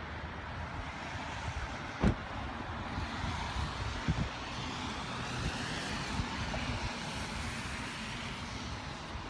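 Steady vehicle noise with a low rumble, broken by one sharp knock about two seconds in and a couple of fainter knocks around four seconds.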